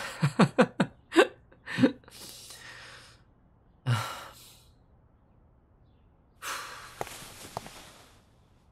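A man laughs in a quick run of short chuckles, then lets out breathy sighs. Near the end comes a longer soft noise with a couple of faint clicks.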